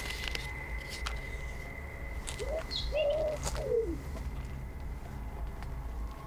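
Pigeon cooing once, about two and a half seconds in: a single call of about a second and a half that rises, holds and falls away.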